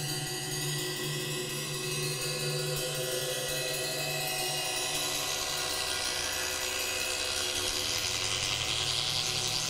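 Suspended cymbal sounding a long sustained shimmer of several steady ringing tones, its high overtones swelling near the end.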